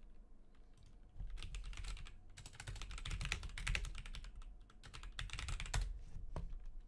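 Typing on a computer keyboard: three bursts of rapid keystrokes, starting about a second in, the longest in the middle.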